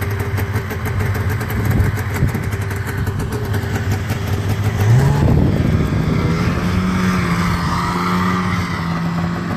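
1991 Polaris Indy 400 snowmobile's two-stroke engine running, its pitch rising quickly about halfway through as the sled speeds up, then holding steady at the higher speed.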